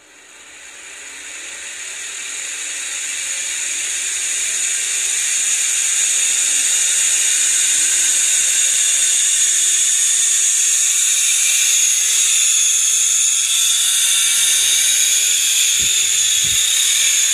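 Small DC motor, a homemade 'turbine' run from a bench power supply, spinning up over the first several seconds to a loud, steady high-pitched whine with hiss. Its pitch creeps slowly upward. Two brief low knocks come near the end.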